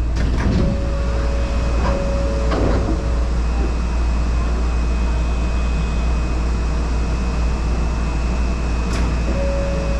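Shonan Monorail rubber-tyred suspended monorail car running, heard from inside the front of the car. A steady low rumble carries a faint high whine, with a few clicks in the first three seconds and a brief motor tone about two seconds in and again near the end.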